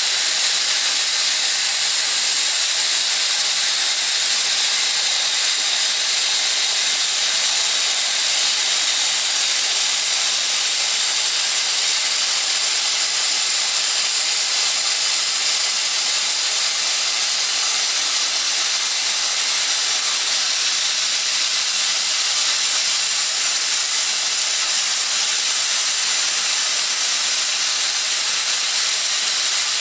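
Plasma cutting torch running on a CNC cutter, a steady hiss from the cutting arc and its gas flow that holds unbroken throughout.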